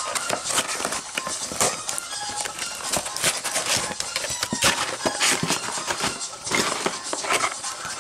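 Packaging of a boxed anime figure being handled and opened: quick, irregular rustles and crinkles of plastic and cardboard.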